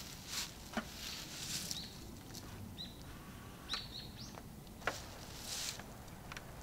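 Soft rustling and two sharp clicks, from someone moving about and handling things at an open car door. Small birds give a few short, high chirps in between.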